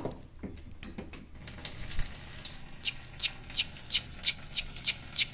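An aluminium pot knocks a few times as it is set down. About a second and a half in, a stream of water from a wall-mounted water purifier's spout starts running into it, with sharp ticks recurring about three times a second.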